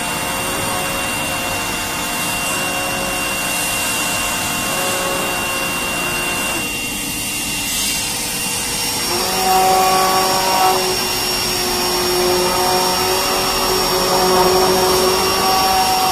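Steady whirring machine noise from a running spray dryer and a hand-held immersion blender churning honey liquid in a bowl. The whine changes pitch about seven seconds in, and a new set of whining tones starts about nine seconds in.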